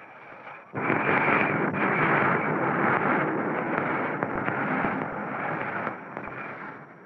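Wooden roller coaster train rumbling and clattering along its track, setting in suddenly about a second in and easing off near the end.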